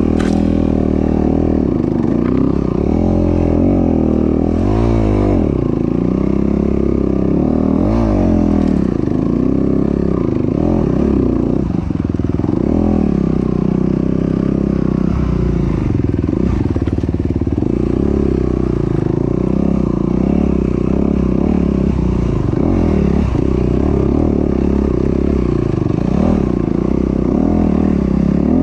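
Honda CRF250RX dirt bike's four-stroke single-cylinder engine under way, its pitch rising and falling again and again as the rider works the throttle, heard on board.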